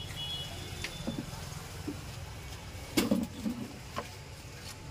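Light handling knocks and clicks on a cluttered workbench, a handful of them, the loudest about three seconds in, over a steady low hum.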